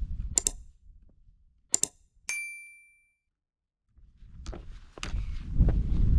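Wind buffeting the microphone dies away, then two sharp clicks and a single bright metallic ding that rings for about half a second. After a second of dead silence, the wind noise and clicking steps come back.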